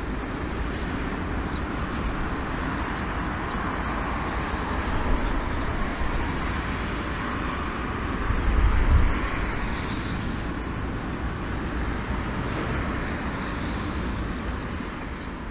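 Jet engines of a four-engine airliner taxiing, a steady roar over a low rumble that swells briefly about eight seconds in.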